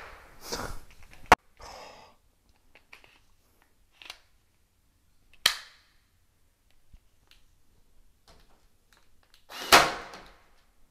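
Cordless electric staple gun firing into a wooden bed frame: a few sharp separate shots several seconds apart, the loudest near the end. It fires only now and then because the gun has been jamming, with something wrong with its staple loader.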